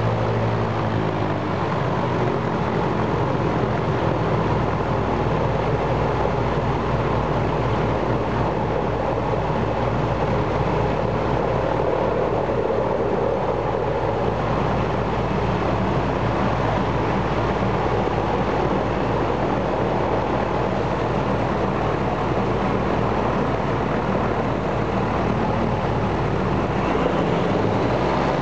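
Ilyushin Il-14's Shvetsov ASh-82T 14-cylinder radial piston engine, run with its cowlings off. It comes up from a lower setting to high power in the first two seconds and holds a steady run-up, then is throttled back about a second before the end.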